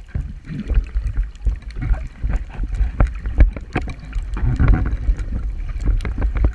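Water sloshing and gurgling, with many short knocks and clicks over a steady low rumble.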